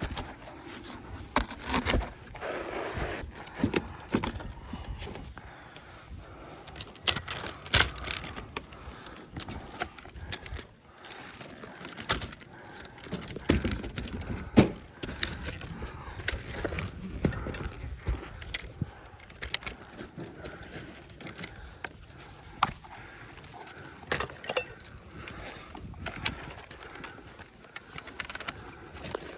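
Irregular scrapes and sharp knocks of hand work on a roof, tools and roofing materials being handled, with the loudest knocks about eight and fifteen seconds in.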